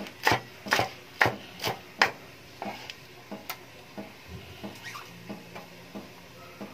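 Kitchen knife chopping oregano leaves on a cutting board: about five sharp chops, two a second, in the first two seconds, then a few fainter, scattered knocks.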